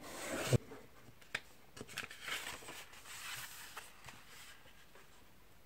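A sheet of printing paper being folded and pressed flat by hand: rustling and crinkling, with a sharp crackle and a thump about half a second in, then softer scattered rustles and small taps as the creases are smoothed.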